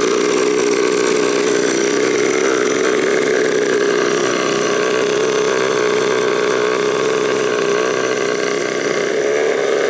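A tiny turbocharger spun up without the engine running, a loud steady whir that holds one pitch; it still spools freely.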